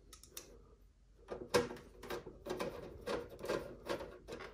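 Hand screwdriver turning a screw into a monitor's VESA mounting hole: a run of short, irregular scratchy strokes starting about a second in.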